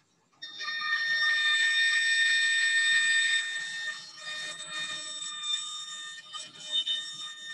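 Bandsaw blade cutting through plywood: a high, steady whine of several tones. It starts about half a second in, is loudest for the next three seconds, then carries on quieter.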